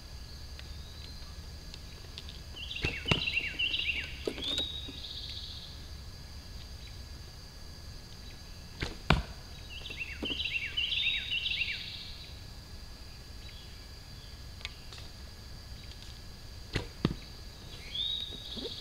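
Bow shots: sharp snaps of the bowstring as arrows are loosed, a few seconds apart. A bird sings two short runs of quick falling notes in between.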